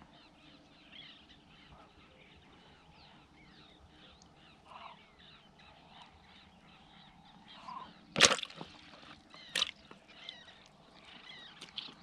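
Birds chirping and calling in the background, many short quick notes, with two sharp knocks about eight and nine and a half seconds in, the loudest sounds here.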